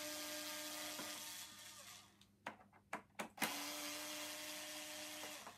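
Cordless electric screwdriver backing out screws. Its motor runs twice with a steady whine, about two seconds each time; the first run fades out, and a few sharp clicks fall between the two runs.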